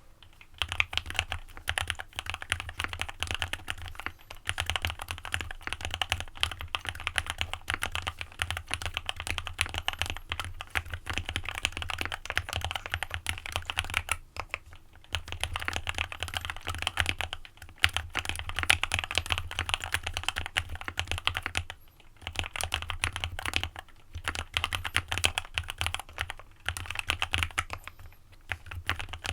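Typing on an AJAZZ x VARO AC067 mechanical keyboard with lubed Alpaca linear switches and a PE foam mod: a fast, continuous patter of keystrokes, broken by a few short pauses.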